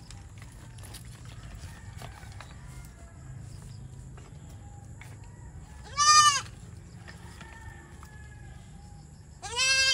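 Goat bleating: two loud calls, one about six seconds in and another near the end, each lasting about half a second.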